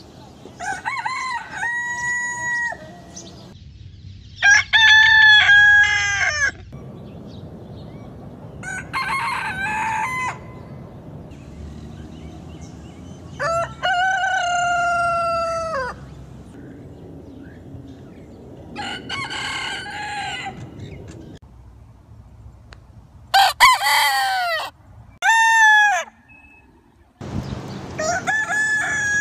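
Roosters crowing, about eight cock-a-doodle-doos one after another with pauses of a few seconds between them, each crow lasting one to two seconds.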